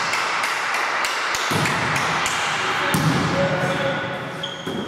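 Volleyball rally in a sports hall: thuds of the ball being played and players' footfalls on the court, echoing around the hall, with a few short high squeaks near the end.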